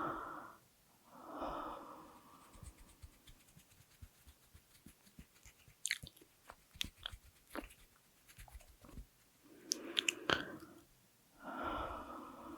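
Slow, heavy breaths close to the microphone: about four long breaths, two near the start and two near the end, with soft mouth clicks and lip smacks in the pause between them.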